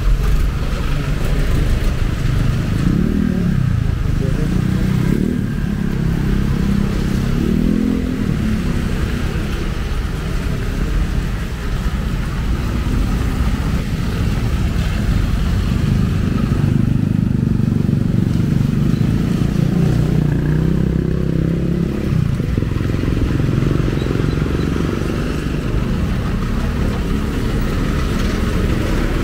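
Street traffic dominated by motorcycle engines passing close by, their pitch rising and falling as several go past, over a steady low engine rumble.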